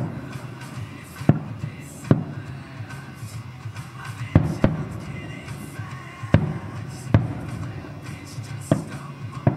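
Fireworks display: aerial shells bursting in about eight sharp bangs at irregular intervals, with music playing underneath.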